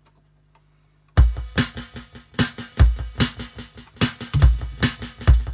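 A programmed electronic drum beat starts about a second in, with heavy kick-drum hits and sharper snare and hi-hat hits between them in a steady rhythm.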